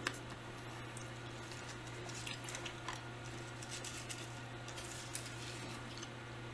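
Faint wet mouth sounds of someone chewing gum: small smacks and clicks scattered through, over a steady low hum.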